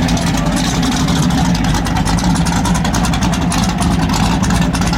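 Muscle car V8 engine running steadily at idle, a loud, even pulsing exhaust note with no revs.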